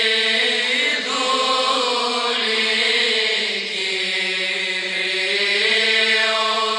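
Greek Byzantine chant: a slow sung melody in long held notes over a steady, unbroken drone note.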